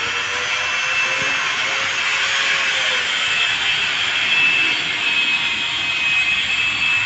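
A machine running steadily: a loud, even hiss with a thin high whine that wavers slightly in pitch.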